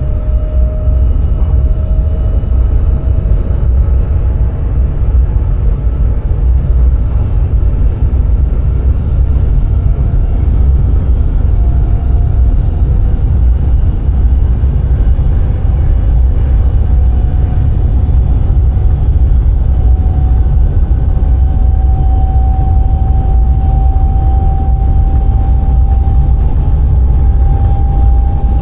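Sprinter electric train running, heard from inside the driver's cab: a steady low rumble, with a faint whine that rises slowly in pitch.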